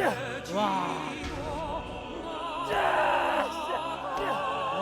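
Operatic singing used as background music: a voice holding high notes with a wide, wavering vibrato.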